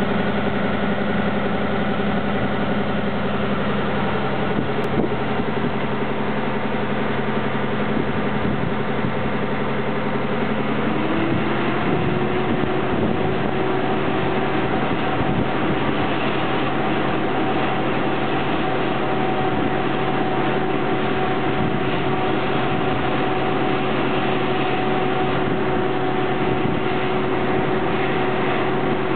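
Heating unit of a MÁV Btx driving trailer car running: a steady mechanical hum with several held tones. About eleven seconds in a higher tone rises and then holds steady.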